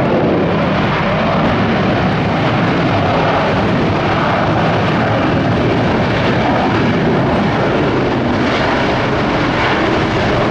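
Jet airliner passing close on its landing approach, a loud, steady rush of engine noise.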